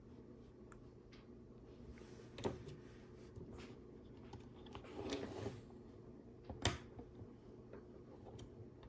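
Small plastic Lego pieces being handled and pressed into place: faint taps and clicks, two sharper clicks, one about two and a half seconds in and one near seven seconds, with a brief rustle a little after five seconds.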